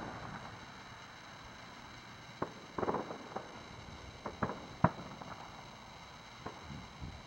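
Distant aerial firework shells bursting: a scatter of sharp bangs and crackles, with a cluster about three seconds in and single loud reports a little after four and near five seconds in.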